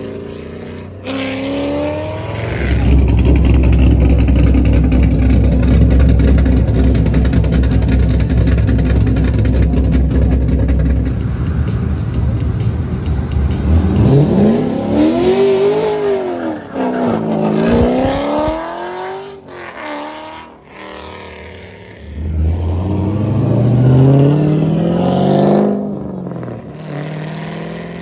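Loud exhaust of a 2003 Corvette Z06's 5.7-litre LS6 V8, cammed, with the cats and mufflers deleted, being driven hard. The revs climb at the start, hold a steady high note for several seconds, then swing up and down twice, and climb again in a final pull near the end.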